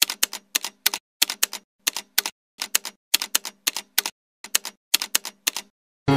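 Typewriter keystroke sound effect: sharp clicks in quick clusters of two or three, stopping about half a second before the end. Music comes in right at the end.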